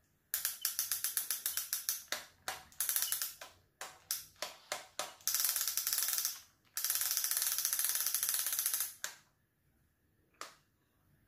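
Ratchet clicking from a homemade fishing reel spinning, in fast even clicks. A long run comes first, then several short bursts, then two longer steady runs, with one lone click near the end.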